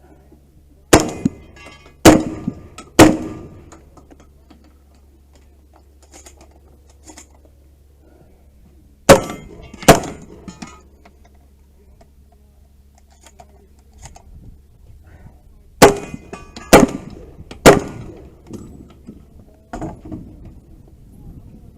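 Gunshots fired in paced groups, each about a second apart: three shots, then two, then three more, with a weaker report near the end.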